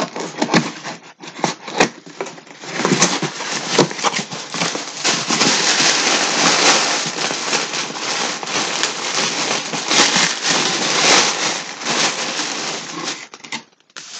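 Cardboard parcel being opened and rummaged through. A run of separate clicks and crackles gives way, about three seconds in, to dense crinkling and rustling of the packing, which dies down near the end.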